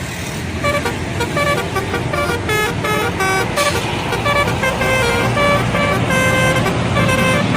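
Indonesian bus 'telolet' multi-tone air horn playing a quick tune of short toots that jump between pitches, over the low rumble of the bus.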